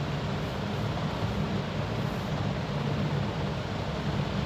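A steady low rumbling noise with a hiss over it, without clear ticks, tones or changes.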